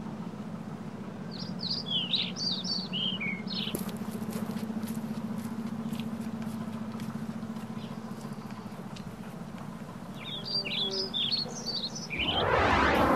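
A small bird chirping in two bouts of quick, high, falling notes, about a second in and again near ten seconds in. Near the end a loud rushing noise swells up and cuts off.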